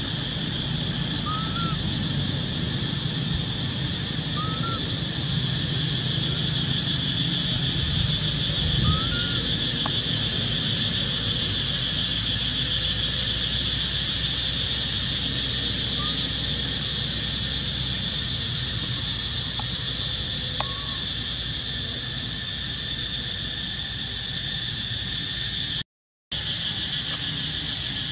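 Steady high-pitched insect drone in two bands, with a handful of faint short chirps scattered through it. The sound cuts out for a split second near the end.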